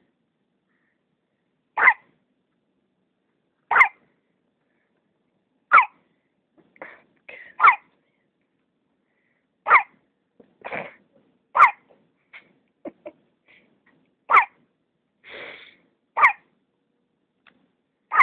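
Newborn baby's violent hiccups: a sharp, loud hic about every two seconds, eight in all, with fainter breathy sounds between some of them.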